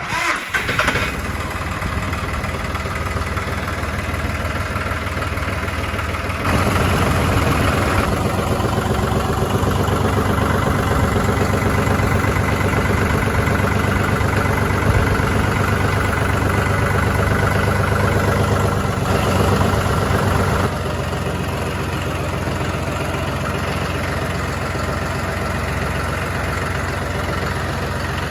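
An engine starts and settles into an idle. About six seconds in it is brought up to a higher, louder speed, holds there for about fourteen seconds, then drops back to a steady idle.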